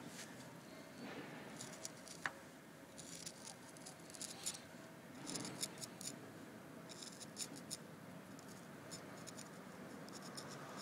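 Faint, intermittent scraping of a small hand carving tool on set plaster as a carved relief is cut and cleaned, in short clusters of scratches, with one sharper tick about two seconds in.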